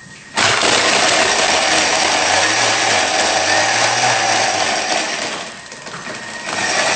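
Thermomix food processor running fast with ice cubes rattling and being chopped in the lemonade in its bowl. It starts abruptly, dies down briefly about five and a half seconds in, then runs again.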